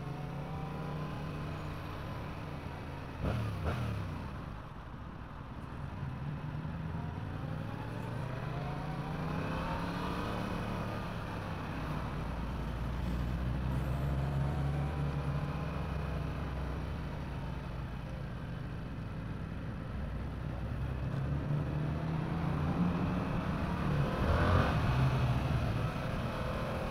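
Yamaha R7 motorcycle's parallel-twin engine under way, its pitch climbing and falling several times as the throttle is opened and closed through the gears. A single sharp knock about three seconds in.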